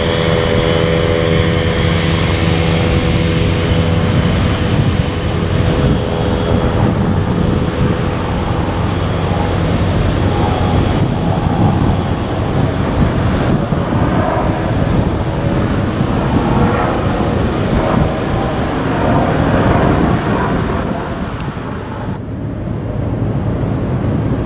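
Regional airliner's engines running loud, with steady engine tones in the first several seconds that then fade. Near the end the sound suddenly drops and turns duller.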